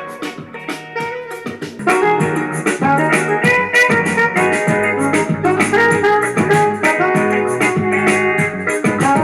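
Music played back through a Zealot portable Bluetooth speaker in a sound test; it gets noticeably louder about two seconds in.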